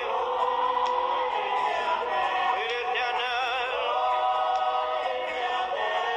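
A man singing a slow worship song into a microphone, with long held notes and wavering vibrato.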